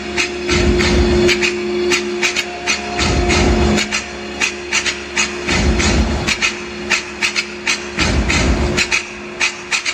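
Electronic runway music playing loud, with held synth notes, sharp clicking hits and a low bass pulse every two to three seconds.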